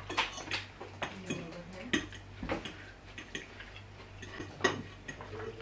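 Forks clicking and scraping against plates as two people eat noodles, in irregular light clicks, over a steady low hum.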